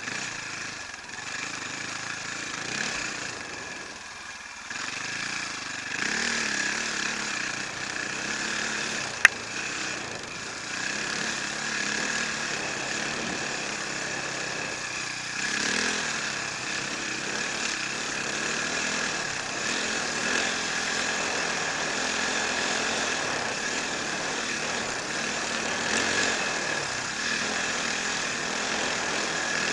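Enduro motorcycle engine running under load, its loudness swelling and easing with the throttle. A single sharp click cuts through about nine seconds in.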